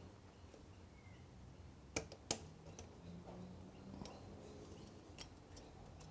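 A few faint, sharp clicks of small metal parts being handled as the pad retaining pins and springs go back into a motorcycle brake caliper: two close together about two seconds in, a lighter one around five seconds in.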